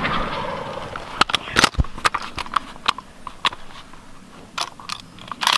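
The echo of a shotgun shot rolls away through the woods and fades. Over the next few seconds, about nine short, sharp clicks and knocks follow at irregular intervals, the loudest a second or two in.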